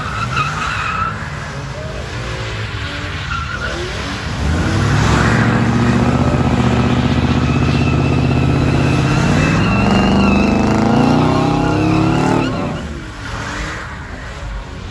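A car doing donuts: the engine is held at high revs with the rear tyres spinning and squealing. About four and a half seconds in it gets louder, the revs climb further around ten seconds in, and the engine drops off suddenly about twelve and a half seconds in.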